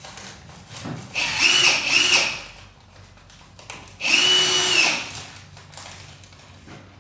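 Power drill running in short bursts: two quick pulses about a second in, then one steady run of about a second near the middle.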